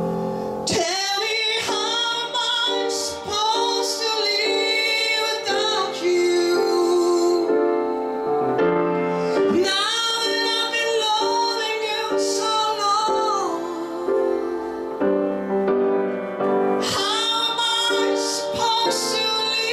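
A man singing a song live into a microphone, in held notes and pitch glides, over a steady instrumental accompaniment.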